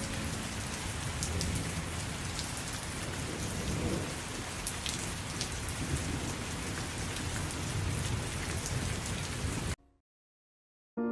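Steady rain falling, with scattered individual drop ticks in the steady hiss. It cuts off abruptly to total silence near the end.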